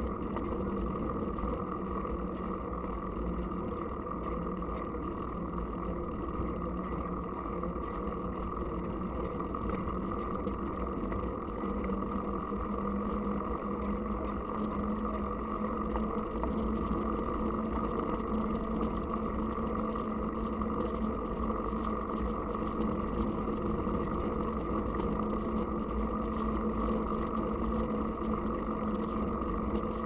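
Road noise from a mountain bike rolling on asphalt, heard through the bike-mounted camera: a steady hum from the tyres over a low rumble of vibration. The hum steps up slightly in pitch about twelve seconds in.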